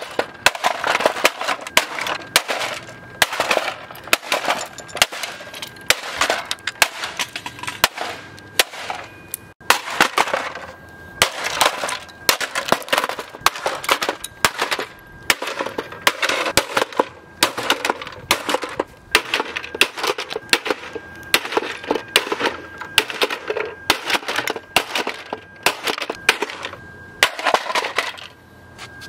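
Plastic toy cash register being smashed again and again on concrete pavement: hard plastic cracking and crashing several times a second, with short lulls, and pieces clattering. A thin steady high tone comes and goes under the impacts.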